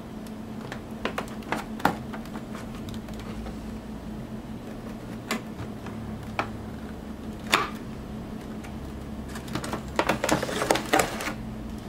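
Rigid clear plastic clamshell packaging being handled, giving scattered clicks and creaks. About ten seconds in comes a denser run of rustling and crinkling as paper and foil packets are moved.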